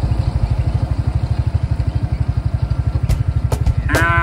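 An engine idling with a steady, even low throb. Near the end a drawn-out animal call begins over it.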